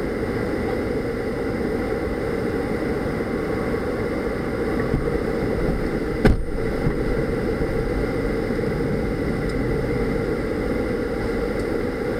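A parked Dodge minivan idling, a steady hum heard inside the cabin. There is one sharp thump about halfway through.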